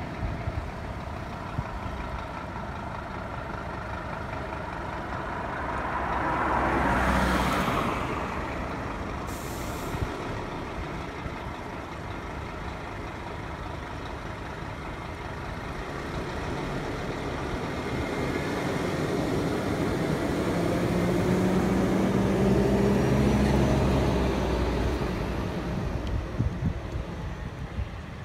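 Scania fire engine's diesel engine pulling away from the station, with a hiss of its air brakes about seven seconds in and another short hiss just before ten seconds. Later the engine swells louder as the truck accelerates away.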